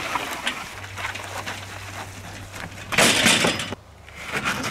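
A plastic folding table with metal legs is handled and tipped over on the ground amid shot-up debris. Scattered knocks build to a loud clatter and crunch about three seconds in, lasting under a second.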